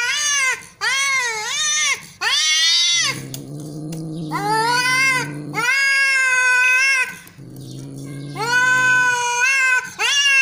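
Domestic cat yowling in an angry caterwaul: about seven long, wavering calls that bend up and down in pitch, with a low growl in the gaps between them.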